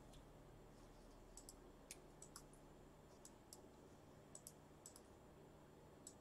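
Near silence: room tone with faint, scattered light clicks, several of them in quick pairs.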